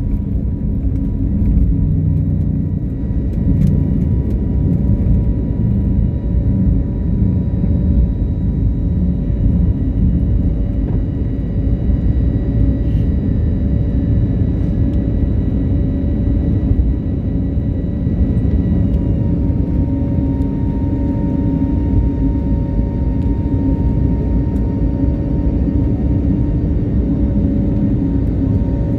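Airliner taking off, its engines at high power: a steady, heavy rumble with several thin whining tones over it, one of which steps up slightly about two-thirds of the way through.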